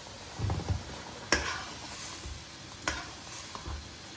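Slotted steel spatula stirring mutton stock at the boil in a stainless steel pot: soft sloshing near the start, then the spatula clinks sharply against the pot twice, about a second and a half apart, the first the loudest.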